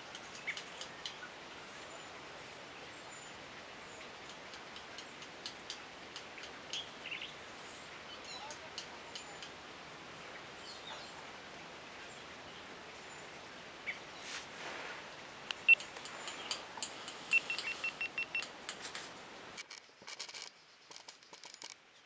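Faint outdoor ambience with scattered short bird chirps and calls, busier in the later part, including a quick run of about six even high notes. Near the end the background hiss drops away and a few sharp clicks are left.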